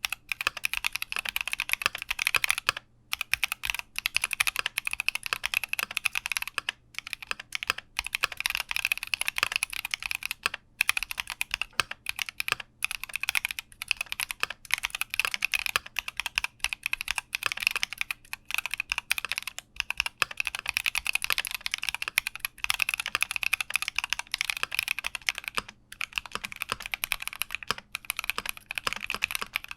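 Keychron Q60 mechanical keyboard being typed on fast and continuously, a dense stream of key clacks with a few short pauses.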